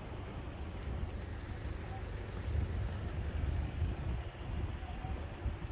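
Low, uneven rumble of road traffic.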